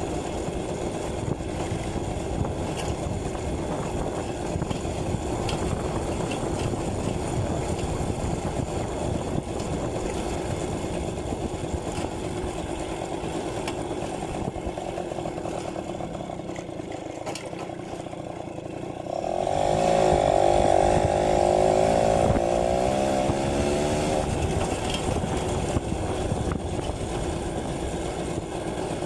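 Yamaha V50 two-stroke engine running on the road during a ride. About twenty seconds in, the engine note rises sharply and grows louder, then eases back a few seconds later.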